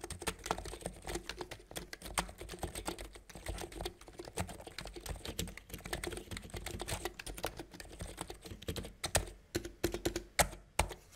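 Cox Endeavour tenkeyless electrostatic-capacitive keyboard with PBT keycaps being typed on with both hands: a fast, steady stream of keystrokes that thins to a few separate, louder strokes near the end.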